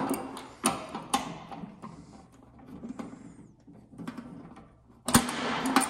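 Adjustable wrench working a blower motor's mounting bolt against its steel bracket: a series of sharp metallic clicks, with a louder burst of rattling about five seconds in.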